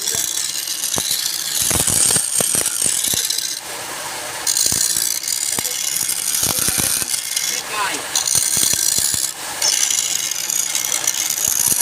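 Wood lathe turning, with a chisel cutting into the spinning wood in passes of a few seconds, each a high hiss broken by short pauses, with scattered knocks and rattles through it.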